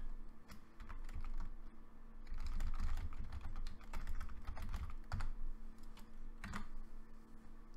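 Typing on a computer keyboard: irregular keystroke clicks as a short line of text is typed.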